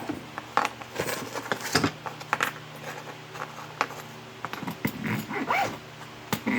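Irregular metallic clinks, taps and rattles of metal parts and hand tools being handled. A dog whines briefly near the end.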